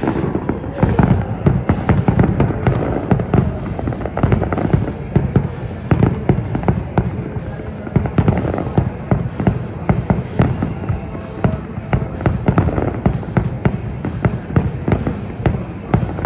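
Fireworks display going off: a dense, continuous run of bangs and crackles, several a second.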